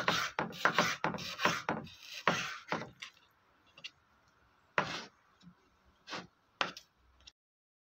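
Chef's knife slicing raw beef into strips on a wooden cutting board: quick strokes knocking on the board, about three or four a second, for roughly three seconds, then a few single cuts. The sound cuts off suddenly near the end.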